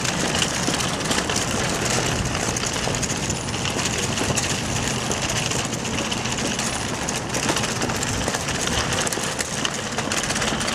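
Steady city street noise with a vehicle engine running low underneath.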